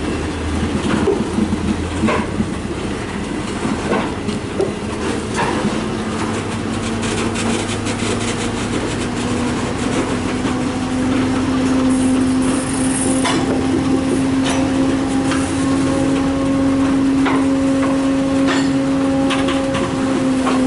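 Two freight trains rolling past at once: a string of tank cars and a train of intermodal flatcars, their wheels rumbling and knocking over rail joints. About a third of the way in, a steady droning tone comes in and slowly rises in pitch.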